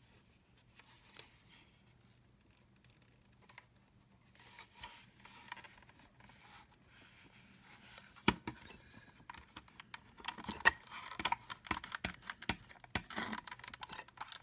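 Plastic vacuum housing and parts being handled: scattered clicks and scraping, with a sharp knock about eight seconds in and denser clattering near the end.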